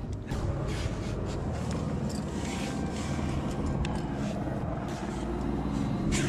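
Steady low rumble of wind on the camera microphone, with scattered rustles and short clicks from clothing, rope and hands on the rock.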